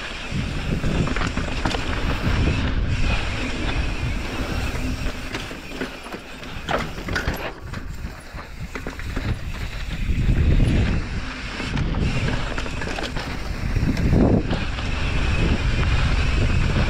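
Wind rushing over the microphone as a mountain bike rides a dirt trail, rising and falling with speed, with a few knocks and rattles from the bike over bumps.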